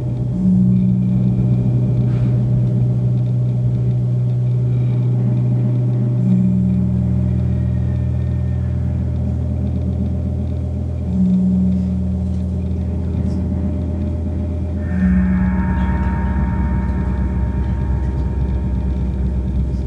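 Electronic drone played from laptops: layered low held tones, a new tone swelling in about every five seconds, joined by a higher steady ringing tone about three-quarters of the way through.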